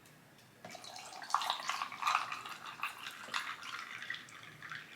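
Spring water glugging and splashing out of a bottle, starting about half a second in and going in uneven gulps.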